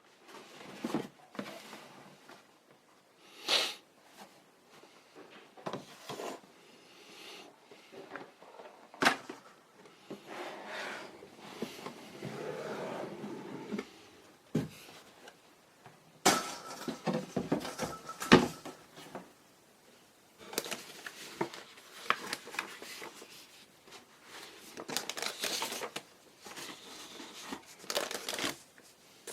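Hands handling a plastic model kit and its packaging. Scattered light clicks and knocks come with stretches of rustling and crinkling, and there is one sharp knock about eighteen seconds in.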